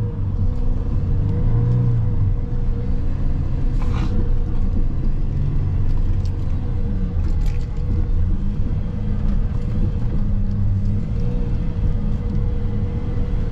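Mercedes Sprinter 6x6 van's engine running steadily under load in low range as it pushes through deep snow, a low drone heard from inside the cab. A couple of short knocks come through about four and seven seconds in.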